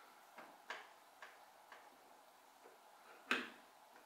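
Scattered light clicks and taps of 3D printer kit parts being handled during assembly, about half a dozen in all, the loudest a sharper knock a little after three seconds in.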